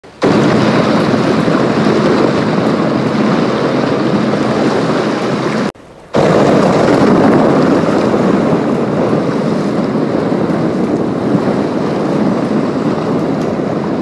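Loud, steady rush of ocean surf and wind, with a short break about six seconds in.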